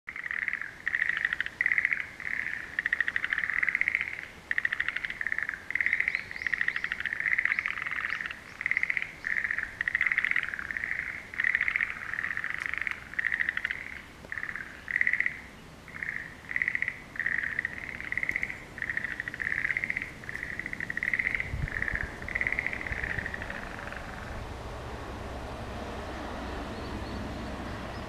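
A chorus of frogs calling from a pond: rattling, trilled calls repeated about once a second and overlapping, which die away about 24 seconds in. A brief low thump comes near the end of the calling.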